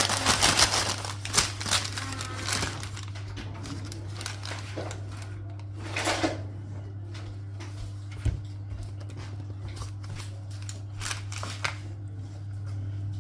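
Scattered rustling and crinkling with short clicks from handling takeaway food packaging, busiest at the start and again about six seconds in, over a steady low hum.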